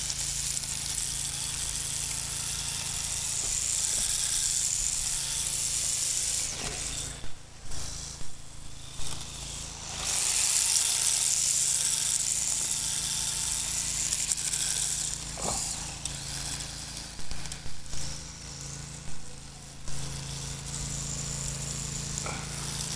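Small all-wheel-drive electric RC car with drift tyres running and sliding on asphalt: a high hissing whine of motor and tyres that swells and fades as it drives about, dropping away twice for a few seconds, over a steady low drone.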